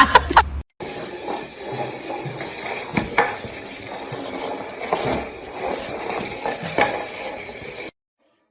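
A louder sound cuts off abruptly, then a quiet stretch follows with faint hiss and a few scattered light clicks and clinks.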